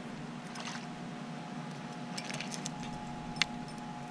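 Scattered light clicks and clinks of fishing tackle as a hooked fish is reeled in to the kayak, over a faint steady hum. The clicks cluster about two seconds in, with one sharper click near the end.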